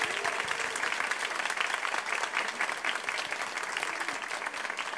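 Audience and choir applauding, many hands clapping steadily.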